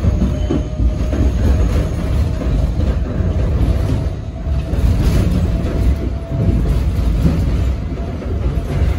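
R68 subway car running along the track, heard from inside the car: a steady, loud low rumble of wheels and running gear, with a faint wheel squeal held under it.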